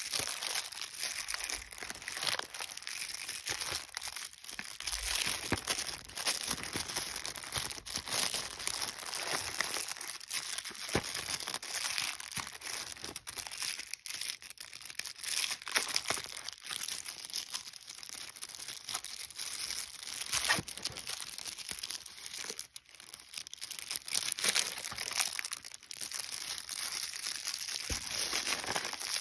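Thin plastic wrapping crinkling and crackling as hands handle cellophane-sealed electric toothbrush brush heads in their plastic tray: a continuous run of irregular crackles.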